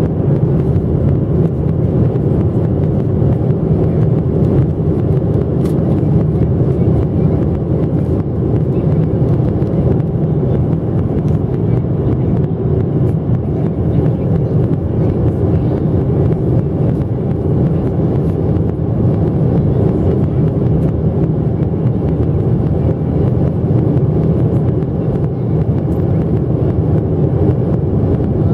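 Steady low roar of cabin noise inside a Boeing 737-700 in flight: its CFM56-7B turbofan engines and the airflow over the fuselage, heard from a window seat over the wing.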